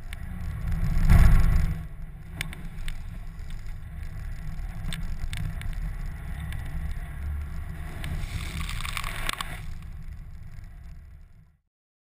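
Vehicle driving over a rough dirt track, heard from a camera mounted on the bonnet: a steady low rumble with scattered knocks and jolts, the loudest jolt about a second in. The sound cuts off suddenly near the end.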